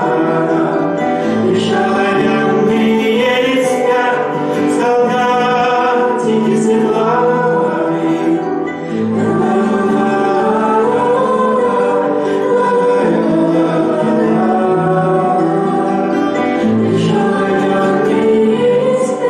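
A man singing a song while strumming his own classical nylon-string guitar.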